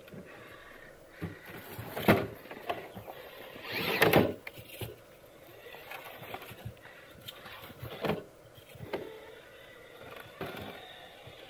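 Traxxas TRX-4 Defender RC crawler's electric drive motor and steering servo whirring in short bursts as it climbs over rocks, with its tyres scrabbling on stone and grass. The loudest bursts come about two and four seconds in.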